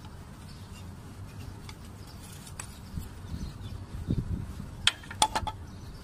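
Low steady background rumble with scattered faint ticks, and a few sharp clicks close together a little before the end, as of small hard parts being handled.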